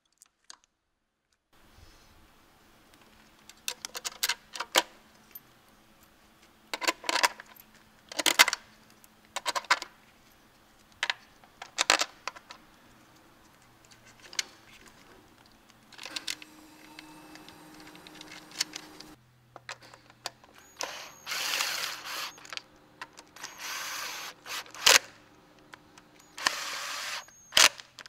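Wrenches and metal engine parts clicking and clanking as intake fasteners and parts are worked loose by hand, then three short runs of a cordless power ratchet, each about a second long, near the end.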